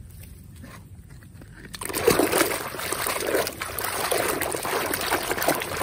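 Soapy water splashing and sloshing in a tub as a plastic toy train is swished and scrubbed in it by hand, starting about two seconds in.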